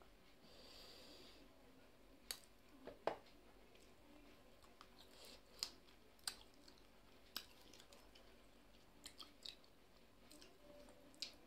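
Close-miked chewing of soft food eaten by hand, chicken curry and rice, with quiet wet mouth clicks and smacks, about a dozen scattered over several seconds.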